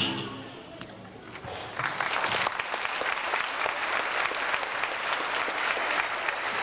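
Audience applauding after a song, the clapping swelling in about two seconds in and then holding steady.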